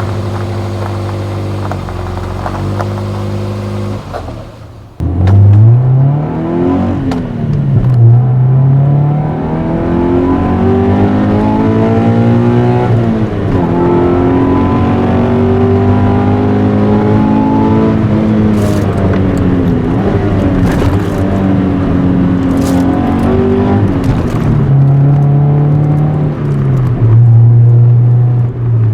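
A Toyota 86 / Subaru BRZ flat-four boxer engine driving under load with its manual gearbox. It runs steadily at first, then dips about four to five seconds in. After that the revs rise and fall again and again as the car accelerates and changes gear.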